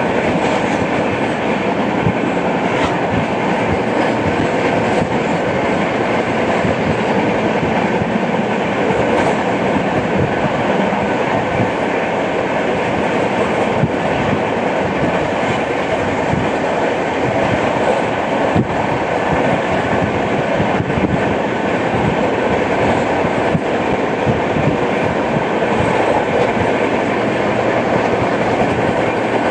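Express passenger train running at speed, heard from on board: a steady rumble of wheels on rail, with frequent clicks and knocks, the sound the uploader calls a flat-wheel track sound.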